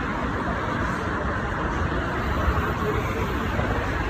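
Steady road traffic noise: passing cars and motor vehicles making a continuous rumbling hum.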